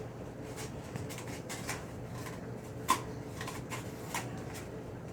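Scattered small clicks and scrapes from a package being worked open by hand, with one sharp click about three seconds in, over a steady low hum.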